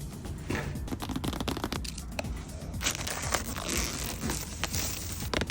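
Packaging being handled, crinkling and tearing in short scratchy bursts, over background music.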